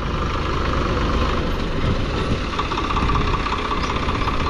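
Three-cylinder diesel engine of a Swaraj 855 tractor running steadily, with a deep rumble and an even, rapid firing beat.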